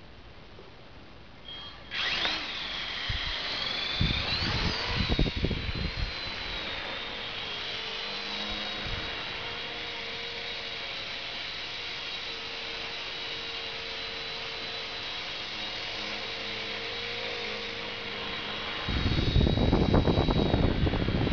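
Walkera CB100 micro RC helicopter's small electric motors spooling up about two seconds in with a rising, wavering whine, then running as a steady high-pitched whine while it hovers and flies. The sound grows louder and rougher near the end.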